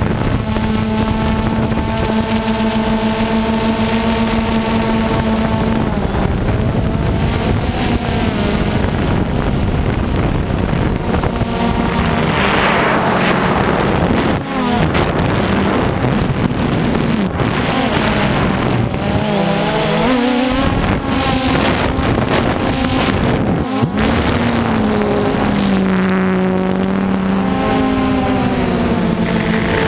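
DJI Phantom 2 quadcopter's motors and propellers buzzing, heard from the camera on board, the pitch holding steady at first and then sliding up and down as the motors change speed. Wind rushes over the microphone.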